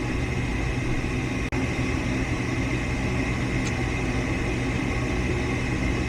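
Goodman gas furnace running a start-up attempt: a steady motor hum, with a faint tick a little over three and a half seconds in. No rush of gas or burner lighting is heard; the burners fail to light, and the technician suspects the gas is not coming out.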